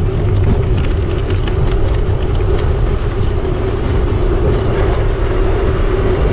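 Loud wind rush buffeting the microphone of a camera riding on a moving bicycle, with a steady hum underneath.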